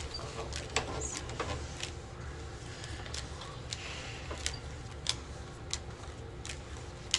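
Playing cards being handled and laid down on a tabletop: a scatter of light, sharp clicks and taps, roughly one or two a second, over a low steady room hum.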